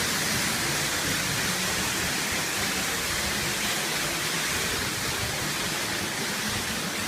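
Waterfall pouring: a steady, even rush of falling water, heard from the rock alcove behind the falls.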